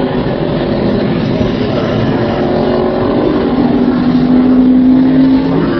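Engines of vehicles on a race track running, with one steady engine note holding its pitch and growing louder over the second half.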